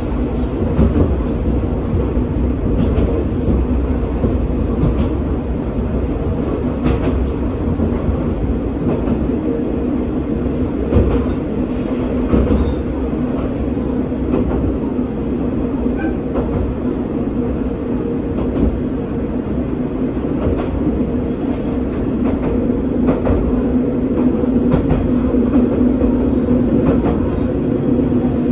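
Diesel railcar running along single track, heard from the cab: a steady engine and drivetrain drone with the wheels clicking over rail joints now and then.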